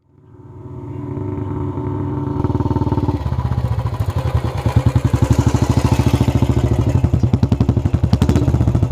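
Royal Enfield Bullet's single-cylinder engine running at idle through its exhaust. It fades in, first as a steady hum, then from about three seconds in as the bike's distinct even beat, roughly eight pulses a second.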